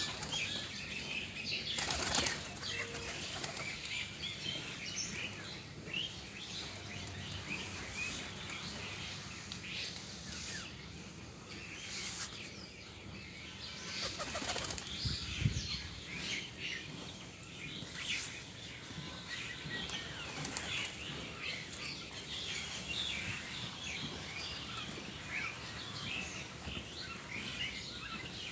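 Many small birds chirping without a break, with pigeons flapping their wings in short loud bursts a few times, the loudest about halfway through.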